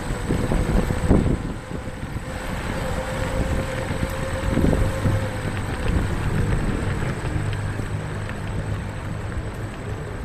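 Wind noise on the microphone and low road rumble from a Xiaomi Mijia electric kick scooter rolling along pavement. A faint steady whine runs through the first half.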